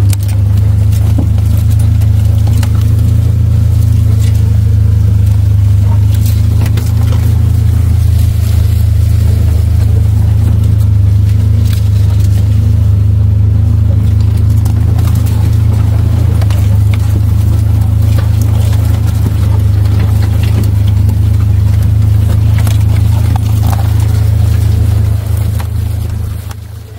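Vehicle moving along a rough track, a loud steady low drone from engine and tyres with scattered knocks and rattles.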